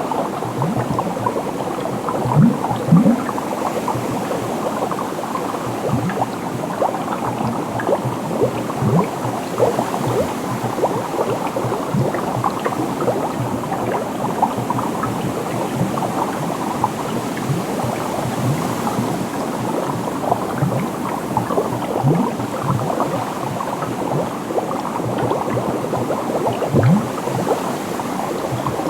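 Dense, continuous bubbling, with many small bubble pops overlapping and some blips rising in pitch. A few louder, deeper pops come about three seconds in and again near the end.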